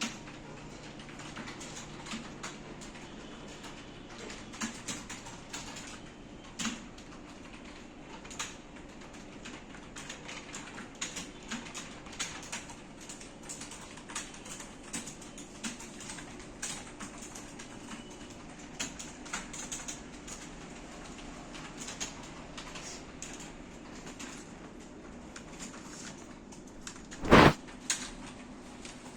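Keys clicking on a computer keyboard at an uneven pace, over a faint steady hum, with one much louder thump near the end.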